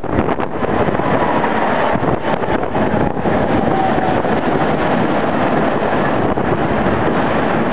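Tram in motion, heard from on board: a steady rumble of wheels on rails and running noise, with a faint whine that falls slowly in pitch for a few seconds, beginning about a second and a half in.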